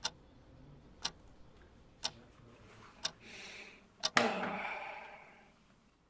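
A clock ticking once a second through a silence. Just after the fourth tick comes a louder click with a hiss that fades away over a second or so.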